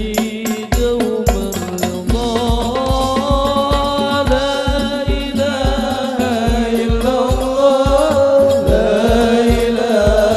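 A male voice sings an Arabic sholawat with long held, ornamented notes over hadroh frame-drum accompaniment. The deep bass-drum strokes fall at about two a second after the first couple of seconds, with sharper hand slaps between them.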